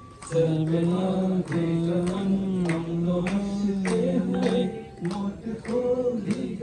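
A man singing over a microphone in long, drawn-out held notes, the longest lasting about three seconds, with a brief break about five seconds in.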